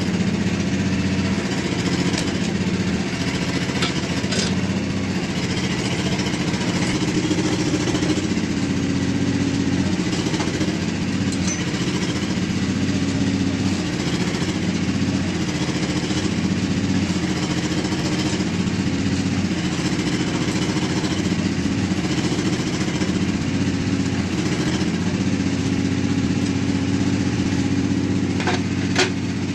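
An engine runs steadily in the background, a constant low hum that holds the same pitch throughout, with a couple of faint clicks.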